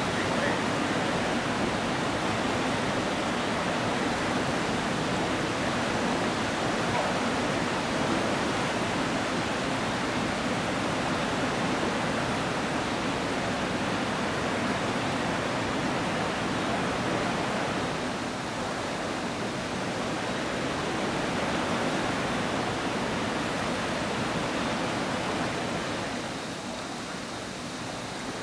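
Steady rush of river water pouring over a weir and through the rapids below it. It eases slightly about two-thirds of the way in and again near the end.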